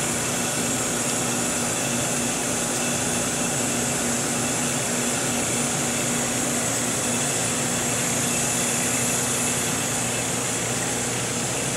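Steady mechanical hum and hiss of an ATV SRO 702/704 vacuum reflow oven running, with a constant low tone, while its IR lamps heat the process chamber.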